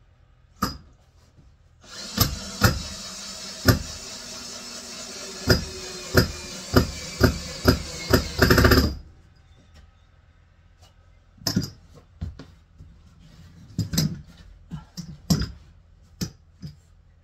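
Cordless drill/driver running for about seven seconds as it drives a screw into the wooden bed frame, with sharp knocks along the way and a louder surge just before it stops. A handful of separate knocks follow.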